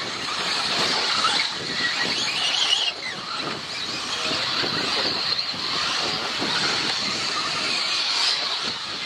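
Radio-controlled 4WD off-road cars racing: a steady high whine of their motors, rising and falling in pitch as they accelerate and brake, over a hiss of tyres on the track.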